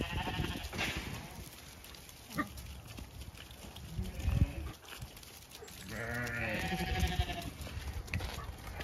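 Zwartbles sheep bleating twice: a short bleat at the start and a longer, wavering one about six seconds in.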